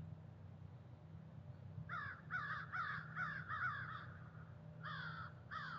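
A duck call blown in quick runs of harsh, falling quacks, about two or three a second: a run of about six, a short pause, then another run starting near the end.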